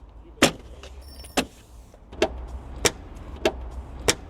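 A series of about six sharp knocks, spaced irregularly about half a second to a second apart. This is the car's plastic front grille being knocked and pressed into its clips as it is fitted.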